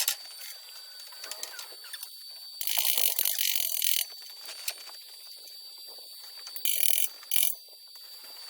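Stick-welding arc crackling in short bursts from a SUZUKID IMAX60 welder: one tack weld of about a second and a half near the middle, then two brief ones near the end, with small clicks and a faint steady high whine between them.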